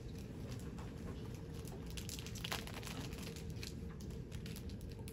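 Quiet room tone: a steady low hum with a faint steady tone, and scattered small clicks and rustles.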